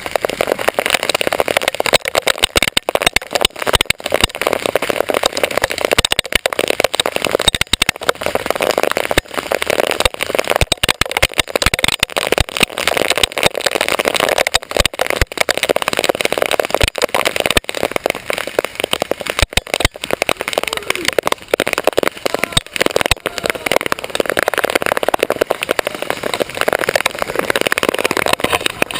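Several airsoft guns firing at once in a dense, continuous rattle, with BBs hitting homemade body armor. It starts suddenly and does not let up.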